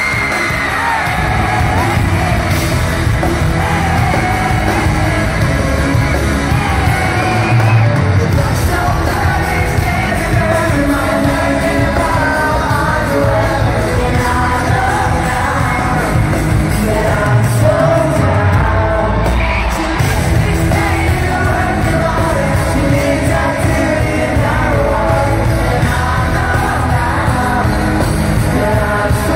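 Live pop-rock band playing with electric guitars, drums and a lead vocal, heard from the audience in a concert hall, with fans yelling over the music.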